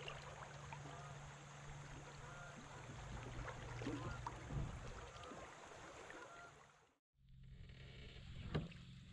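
Faint water lapping and trickling around a kayak hull over a low steady hum. The sound drops out briefly about seven seconds in, and a single sharp click follows near the end.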